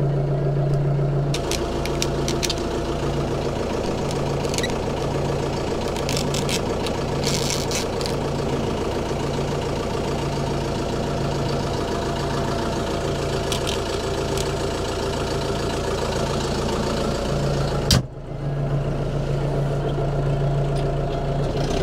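Arbos 3055 tractor's diesel engine running steadily under load while pulling a disc harrow, its low note pulsing evenly about once a second. A sharp click about eighteen seconds in.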